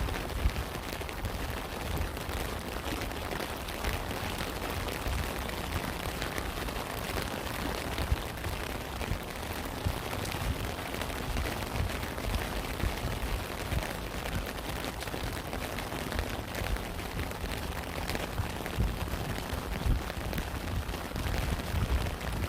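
Steady rain, with many separate drops ticking over a constant hiss and a low rumble underneath.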